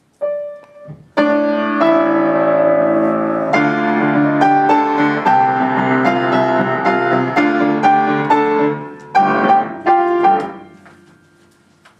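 Piano music: a melody played over held chords, with a few sharply struck chords near the end before the last one fades away.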